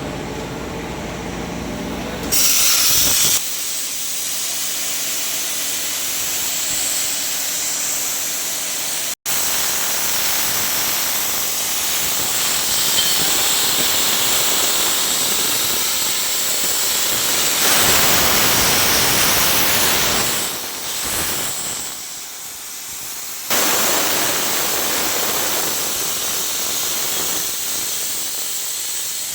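Panasonic CNC plasma cutting machine cutting metal: the plasma arc and its air jet give a steady, loud hiss. It swells louder briefly a few seconds in and again after a short dip near the end.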